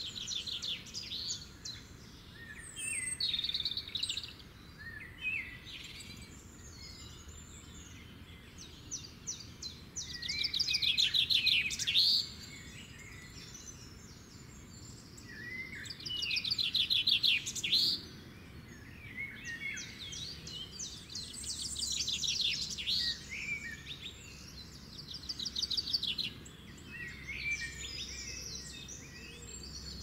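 Small songbirds singing: rapid trilled phrases of about two seconds, repeated every few seconds, with scattered shorter chirps between them.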